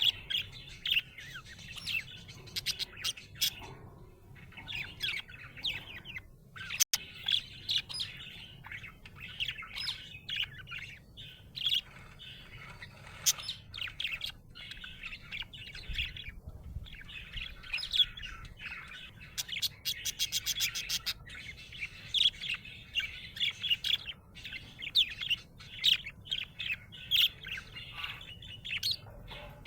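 Budgerigar chirping and warbling in fast, busy chatter, broken by a few short pauses, with a quick run of clicking sounds about two-thirds of the way through.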